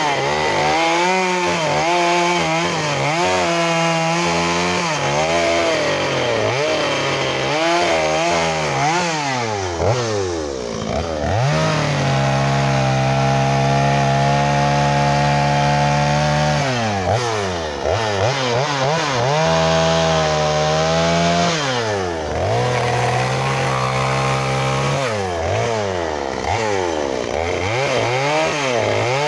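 Two-stroke chainsaw carving wood, its engine revving up and down again and again as the throttle is worked. About twelve seconds in it holds one steady pitch for about four seconds, then goes back to rising and falling.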